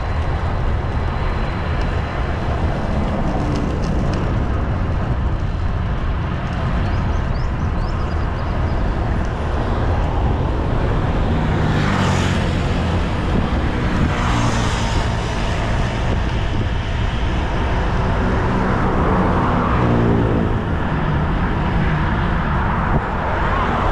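Strong wind buffeting the microphone of a road bike ride, a steady loud rumble, with motor vehicles passing on the road about halfway through and again toward the end.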